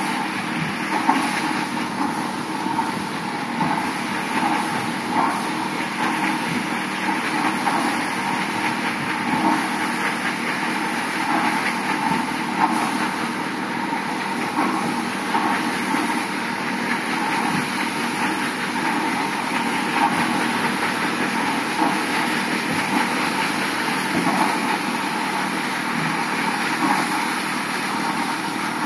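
Paddle steamer Kingswear Castle under way: its steam engine and paddle wheels churning the water, a steady mechanical running noise with no break.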